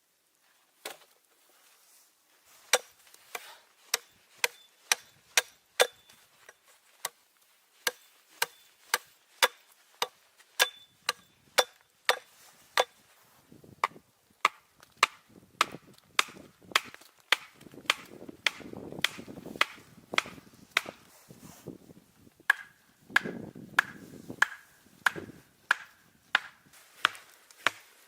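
Wood being chopped with a long run of sharp strikes, about one and a half a second, some with a brief ringing tone, and rustling between strikes in the middle stretch.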